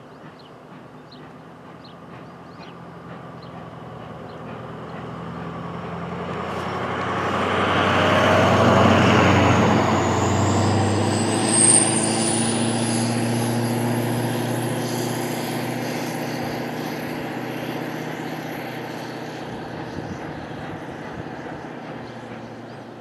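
The Alco 2-8-0 Consolidation steam locomotive Arcade & Attica No. 18 and its passenger cars run past. The rumble grows louder to a peak about a third of the way in, then slowly fades. About ten seconds in, a thin high squeal rises in pitch and holds for several seconds.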